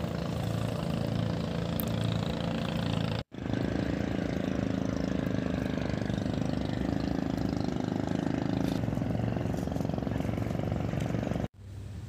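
A steady, even engine hum that briefly cuts out twice, about three seconds in and again near the end.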